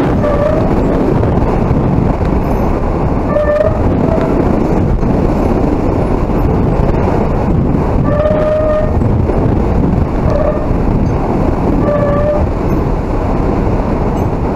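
Steady, loud noise of hurricane wind and rain. Several short pitched tones, each about half a second long, come and go over it.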